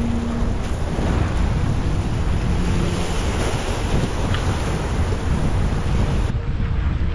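Wind buffeting the microphone over open sea: a steady low rumble with hiss over it. The high hiss thins out about six seconds in.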